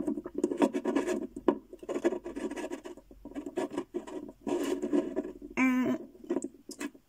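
Plastic toy cat figurine being turned and shuffled by hand on a wooden shelf: irregular rubbing, scraping and light taps of plastic on wood.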